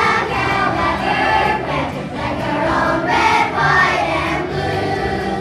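A group of young children singing a patriotic song together as a choir.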